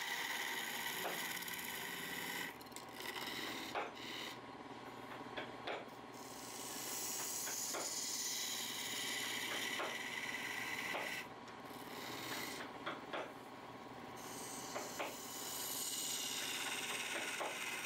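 A spinning wooden workpiece on a wood lathe being worked by hand: a rasping, hissing rub against the wood in three long passes, with a steady machine hum underneath and short ticks in the pauses between passes.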